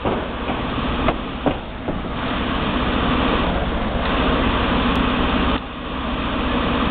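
City street traffic with a utility van's engine idling at the kerb and cars passing close by; a few light clicks come between one and two seconds in.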